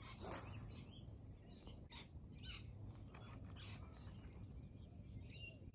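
Faint birds chirping, with a brief swish of a spinning rod being cast about the start.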